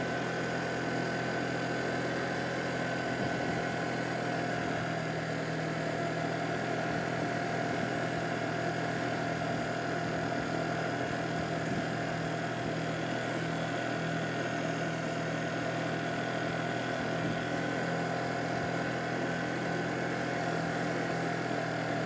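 Honda Giorno 49cc four-stroke scooter engine running steadily at an even, unchanging pitch.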